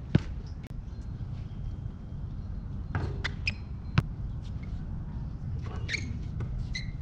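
A basketball bouncing on an outdoor asphalt court: two sharp single bounces, the louder just after the start and another about four seconds in, over a steady low rumble.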